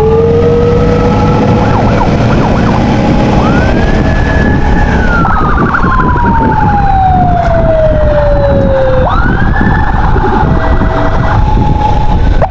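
Funeral ambulance's siren changing pattern: a slow rise, a fast warble, a long falling wail, then a sharp rise held high, over steady heavy engine and road rumble.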